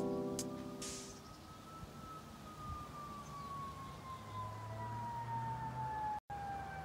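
The beat's last chord dies away, leaving a single thin tone that rises slightly and then glides slowly downward in pitch, much like a siren winding down. The sound cuts out for a moment near the end.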